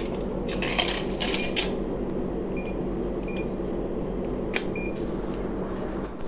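Coins clinking and rattling into a snack vending machine, followed by three short electronic beeps from the machine and a single sharp click, over a steady low hum.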